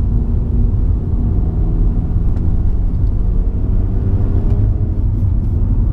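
Alfa Romeo Giulietta QV's 1750 TBI turbocharged four-cylinder with a Supersprint exhaust, heard from inside the cabin over a heavy, steady low road rumble. The engine note rises slowly from about a second and a half in as the car gathers speed in Dynamic mode.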